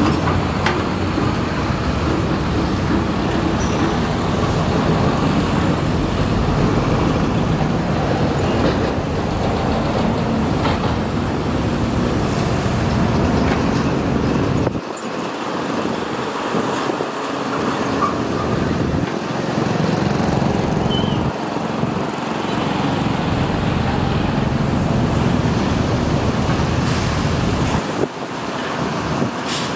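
Matador ME210LC-1 crawler excavator's diesel engine running under load as it digs soil, with a dense mechanical rumble. The low rumble drops away abruptly about halfway through and again near the end.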